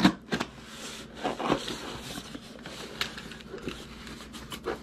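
Box cutter slicing through packing tape on a cardboard box, with the cardboard scraping and rustling as the box is turned in the hands: a string of short, irregular scrapes and rips.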